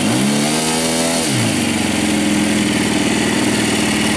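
ASP 5cc four-stroke glow engine on an RC model plane running at a steady idle, with one brief rev that rises and falls back in pitch over about a second near the start.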